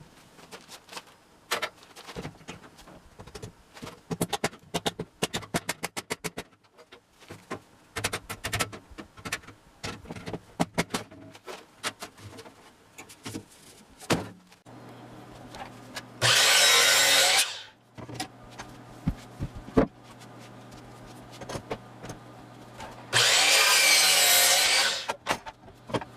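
Lumber knocking and clattering as it is handled, then a power drill run twice, about a second and then about two seconds, its motor pitch shifting under load.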